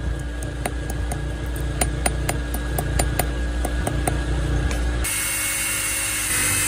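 A small hammer tapping quickly and lightly on a small piece of flat steel resting on an anvil, about five sharp metallic taps a second. About five seconds in, the tapping gives way to an electric drill running, boring into the steel.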